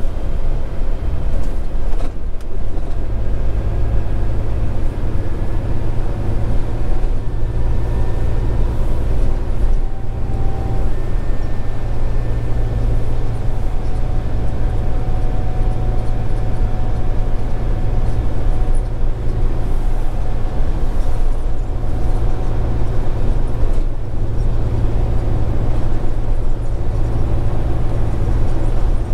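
Scania R410 truck's six-cylinder diesel engine running steadily on the move, a low even drone with road noise.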